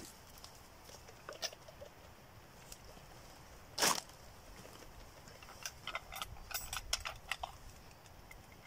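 Handling of a glass jar of moonshine and small camp kit: one short loud scrape about four seconds in, then a quick run of small clicks and taps for about two seconds.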